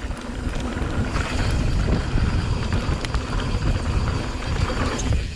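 Wind rushing over the bike-mounted camera's microphone and mountain bike tyres rolling over a dry dirt trail at speed: a steady, rough rumble.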